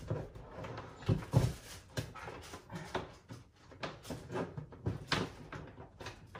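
Irregular knocks, clicks and clatter of objects being handled on a desk, with a sharper knock about a second in and another about five seconds in.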